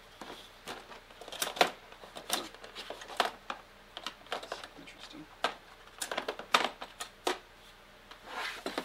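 Small hand tools being handled on a workbench: a run of irregular sharp clicks and clacks, a couple of dozen in all, with the loudest ones about a second and a half in and again past six seconds.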